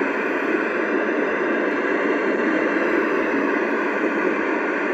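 Washington AM-SSB CB base station giving a steady static hiss from its speaker: an empty channel with no station transmitting, while it is switched from channel 25 up to 27.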